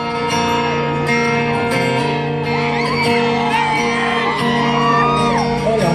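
Concert crowd screaming and whooping over a held, ringing acoustic guitar chord in a large hall.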